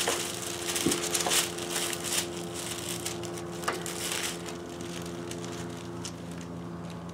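Small snap-setting dies and tool parts being handled and rummaged through: scratchy rustling with several sharp clicks over the first four seconds or so, then only a steady low hum.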